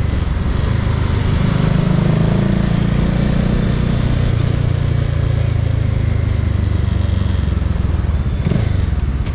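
Bajaj Dominar 400 single-cylinder motorcycle engine running under way, its note sagging slowly through the middle and picking up again near the end, over wind and road noise.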